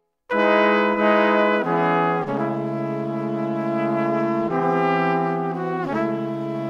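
Background music: a new piece starts abruptly just after a moment of silence, with sustained chords that change every second or so.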